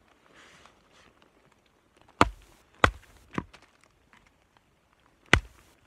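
Batoning: a wooden baton striking the spine of a knife set into an upright round of wet dead wood, splitting it to get at the dry core. Four sharp knocks: three about half a second apart a couple of seconds in, then a fourth near the end.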